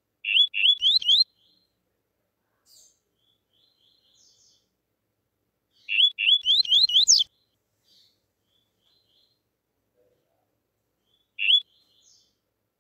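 Male double-collared seedeater (coleiro) singing the 'tuí-tuí' song: two short phrases of quick rising whistled notes, about a second each and several seconds apart, the second ending on higher notes, then a single note near the end, with soft faint notes in the pauses.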